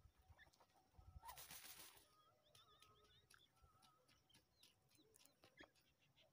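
Faint sounds of a grey francolin dust-bathing in dry soil: a brief rustle of flicked dirt about a second in and scattered soft clicks and scratches. Short, thin bird chirps sound throughout.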